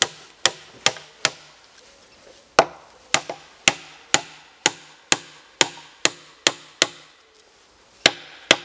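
Hammer driving a wooden peg into the joint between a timber post and crossbeam: sharp wooden knocks about two a second, each with a short ringing tone, pausing briefly twice.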